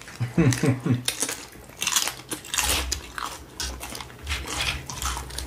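Close-miked crunching and chewing of a mouthful of taco salad with Cool Ranch Doritos tortilla chips: a rapid run of crisp crunches as the chips break between the teeth.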